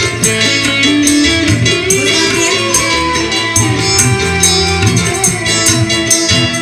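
Live dangdut band playing: electric guitars and keyboards carry the melody over bass guitar and regular drum hits.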